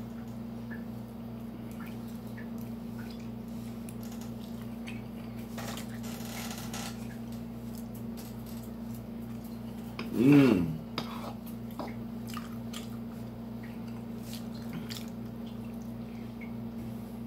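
A metal fork clicking and scraping against a dish while a man chews, over a steady low hum. About ten seconds in comes a brief, louder vocal sound whose pitch rises and falls.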